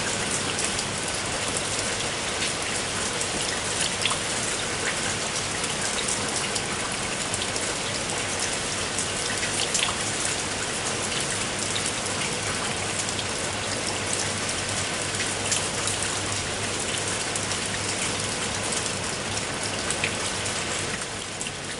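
Steady rain falling on a surface, a dense hiss with many individual drops ticking sharply, beginning to fade out near the end.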